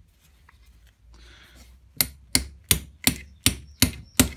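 Ball-pein hammer striking a pin punch in quick, even blows, about three a second, driving a drift pin out of a rotavator clutch. The blows start about halfway through, after a short pause with a faint rustle.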